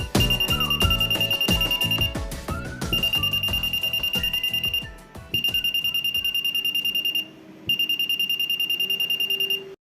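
Piezo buzzer of an Arduino earthquake detector sounding its alarm: a high, rapidly pulsing beep in four runs of about two seconds with short breaks between, signalling that the motion sensor has detected shaking. Background music with a beat plays under the first half and fades; everything cuts off just before the end.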